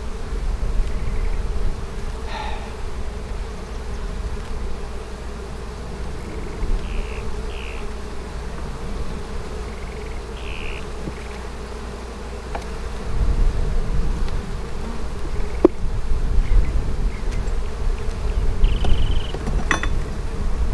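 Honey bees buzzing in a steady hum over an open hive, with a few light clicks of a metal hive tool prying frames loose late on.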